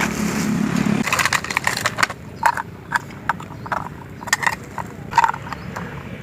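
Small hard pieces of a miniature toy cooking set knocking and clicking together as they are handled. After a short low hum at the start comes a string of sharp taps, about two a second.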